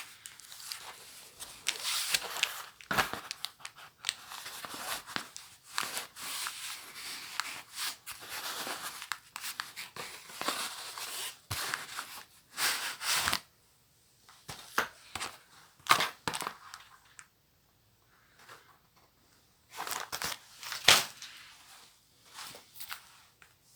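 Paper packaging being torn open and crumpled by hand, in irregular rustling bursts with a few sharp snaps.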